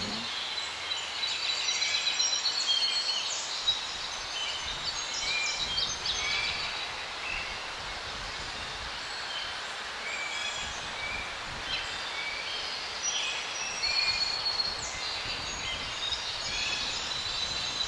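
Birds chirping and singing, many short high calls coming thick and fast and thinning out in the middle, over a steady hiss.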